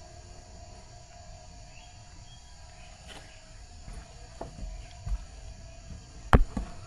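Steady insect chirring in rural outdoor ambience, with a few soft knocks and one sharp knock near the end.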